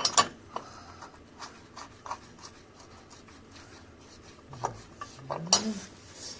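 Hand tools and bolts clinking and scraping on metal during work under a car's subframe. There are several sharp clicks at the start, scattered light knocks after them, and one loud sharp click about five and a half seconds in.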